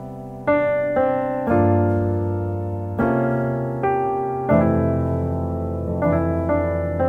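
Background piano music: chords struck and left to ring and fade, a new chord about every half second to a second and a half.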